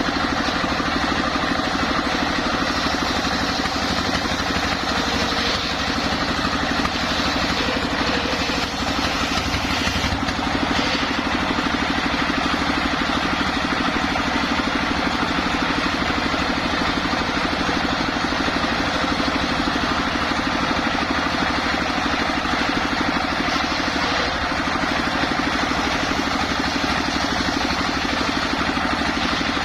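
Homemade engine-driven circular saw running steadily.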